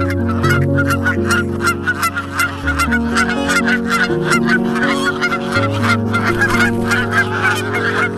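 Geese honking over and over in quick succession, several calls a second, like a flock calling together.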